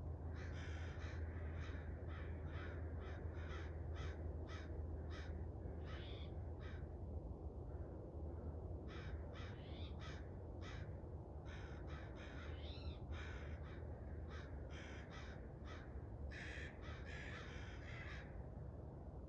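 A bird giving long runs of short calls, a few a second, in two bouts with a pause of about two seconds between them, over a steady low hum.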